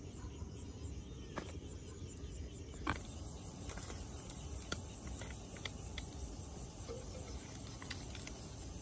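Night insects, crickets, chirring over a low steady rumble, with a few scattered sharp clicks and knocks, the loudest about three seconds in.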